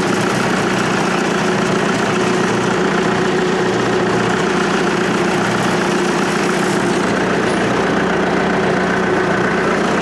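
Tractor engine running steadily, heard close up from the operator's seat.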